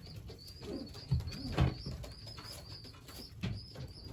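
Pigeons cooing in a loft: low coos about a second in and again near the end, over a steady high cheeping that repeats about three times a second.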